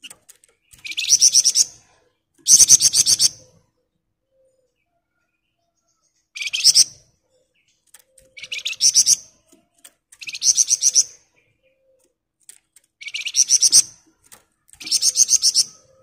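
A caged flamboyan songbird singing its 'ngebren' song: seven short, dense trills of rapid high notes, each under a second long, with pauses of one to three seconds between them.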